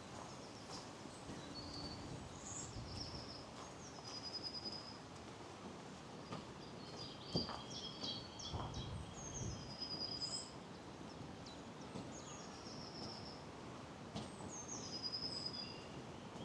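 Small woodland birds singing: quick, repeated high phrases and short trills from several birds, with a thin, steady high note running through the second half. A single sharp click sounds about seven seconds in.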